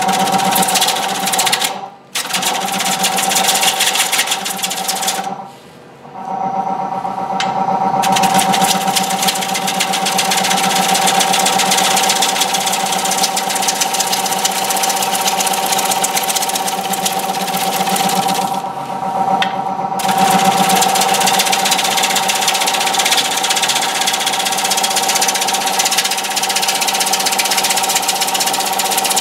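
Wood lathe running with a gouge cutting the face of a large basswood platter: a steady motor hum under the rough hiss of the cut. The sound drops away briefly twice in the first few seconds.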